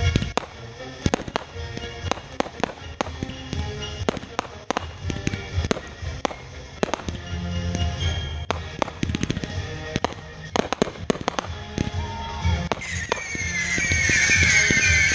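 Fireworks going off in a quick series of sharp bangs and crackles, with music playing underneath. Near the end, shrill wavering whistles join in, sliding slightly downward.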